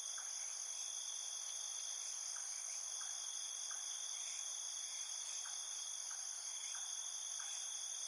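Steady, high-pitched insect chorus, with faint short ticks every half second or so.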